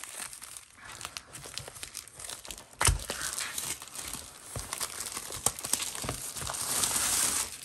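Plastic wrapping being pulled off a cardboard box, crinkling and crackling in irregular bursts. There is one louder knock about three seconds in, and the rustling thickens near the end.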